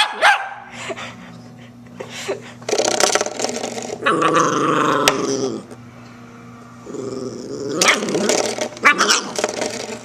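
Puppy growling and barking at a spring door stopper: a couple of sharp barks at the start, a long growl in the middle, and more growling with barks near the end.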